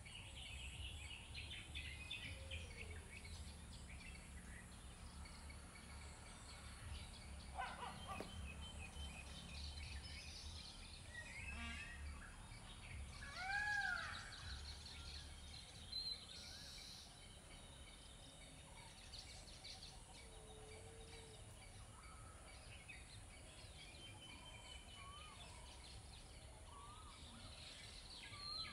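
Birds calling and chirping over a steady low hum of outdoor background noise, with a louder rising-and-falling call about halfway through.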